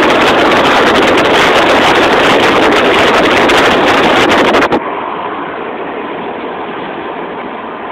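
Wind buffeting the microphone at an open window of a moving car, loud and rough, cutting off abruptly almost five seconds in. After that, the steady road noise inside the car cabin.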